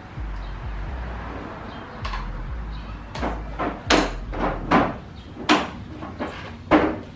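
A low rumble of handling, then a run of about eight sharp knocks and thuds over the last four seconds, the loudest near the end: a Yamaha Warrior 350 ATV's engine side cover being pushed and tapped into place during a stator install.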